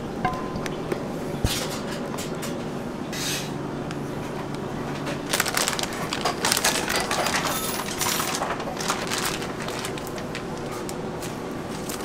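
Plastic piping bag rustling and crinkling, densest in the middle, as it is handled and gathered up out of a plastic jug. Earlier there are a few light knocks and clinks, over a steady kitchen hum.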